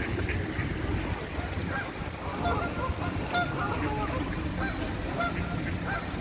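Canada geese honking from a flock on the water: several short honks scattered through, the loudest about three and a half seconds in, over a steady low rumble.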